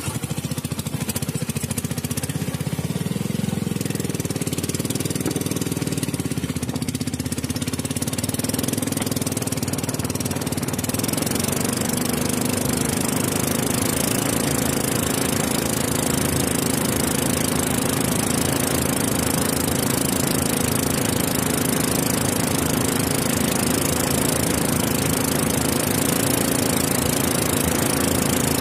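Small boat engine running under way, its note rising over the first few seconds and then holding steady at speed. A rushing hiss of water and wind grows from about ten seconds in.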